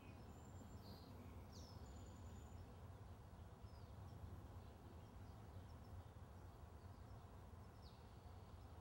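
Near silence: a faint steady low outdoor rumble, with a few faint high bird chirps, one about a second and a half in and another near the end.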